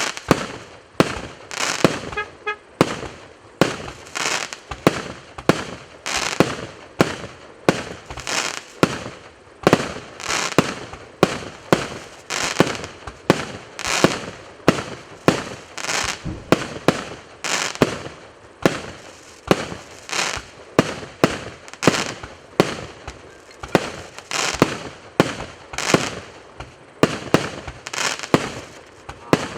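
A 118-shot consumer fireworks cake of mixed 1.0" and 1.9" calibre firing in steady succession: sharp reports about two a second, each launch followed by its aerial burst.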